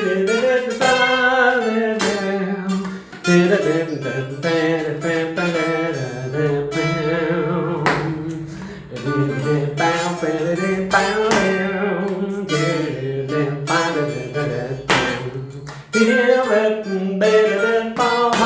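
Guitar melody played along a single string, with notes sliding into one another, outlining a C7 chord.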